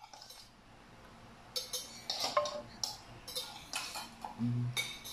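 Metal pot and utensils clinking and knocking, a run of sharp clinks starting about a second and a half in.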